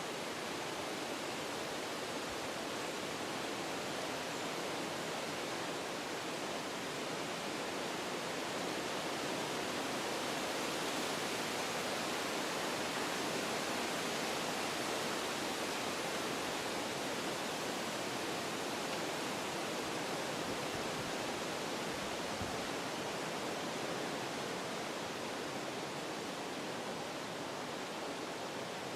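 Wind blowing through forest trees, a steady noise of moving leaves and branches that swells a little in the middle and eases slightly near the end.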